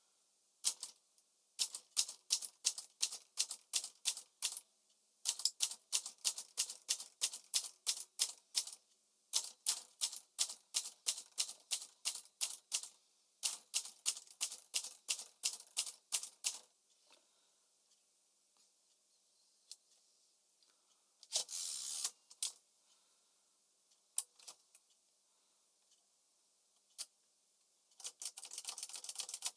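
Smith-Corona Calypso manual typewriter being typed on: four runs of sharp key strikes at about four to five a second, with short pauses between runs. Later come a short rasping burst and, near the end, a quick dense rattle of the mechanism.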